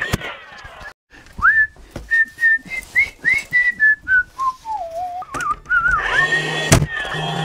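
A man whistling a short, wandering tune, the notes rising and falling, from about a second in until about six seconds. Near the end comes a single sharp snap from a cordless 18-gauge brad nailer shooting a nail into door casing.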